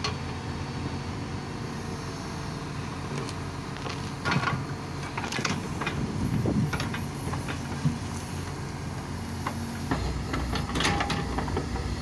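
Backhoe loader's diesel engine running steadily as the rear hydraulic bucket digs into soil, with scattered knocks and scrapes of the bucket against earth and stones.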